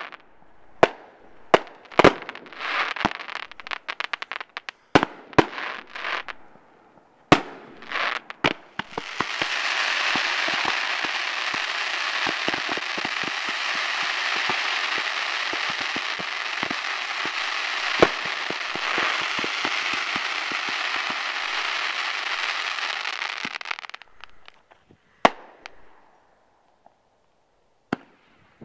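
Aerial fireworks going off: a rapid run of sharp bangs from bursting shells, then about fifteen seconds of dense, unbroken crackling, and a few more bangs near the end.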